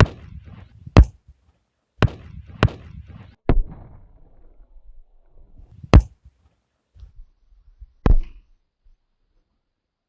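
Sutli bomb firecracker bangs: about seven sharp, loud blasts at irregular intervals over eight seconds. The loudest come about a second in and about six seconds in.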